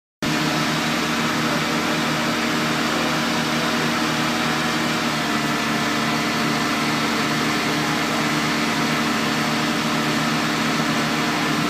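Engine idling steadily: a constant drone with a low hum of several steady pitches, starting abruptly just after a moment of silence.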